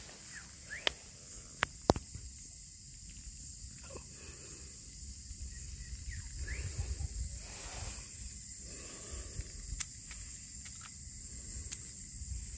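Outdoor ambience: a steady high-pitched hiss, with wind rumbling on the microphone at times and a few sharp clicks in the first two seconds.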